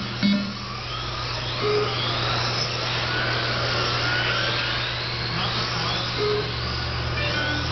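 Several electric Tamiya TT-01 RC touring cars racing together, their motors whining and sliding up and down in pitch as they speed up and slow down through the corners. A few short electronic beeps cut in now and then, over a steady low hum.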